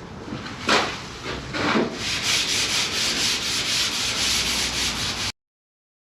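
Sandpaper being rubbed by hand over a primed car body panel: two separate strokes, then a quick, even run of back-and-forth sanding strokes from about two seconds in that cuts off suddenly.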